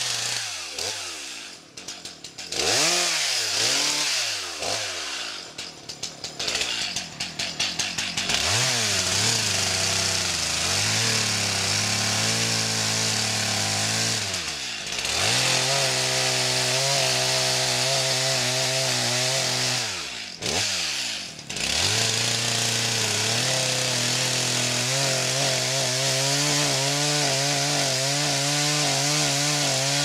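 Two-stroke chainsaw blipped up and down a few times, then held at full throttle cutting into a tree trunk, its pitch wavering under the load. The revs fall away briefly about halfway through and again about two-thirds in, then the saw goes back to cutting.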